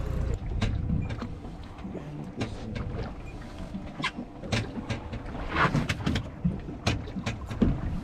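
Scattered sharp clicks and knocks, like gear and fishing tackle handled on a boat deck, with a short rushing noise about five and a half seconds in.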